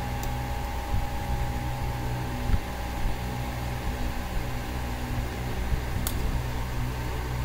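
Steady mechanical hum with a thin whine, broken by a few small clicks and taps as a metal blade pries at the seam of a Voopo Vinci pod vape's metal case to open it.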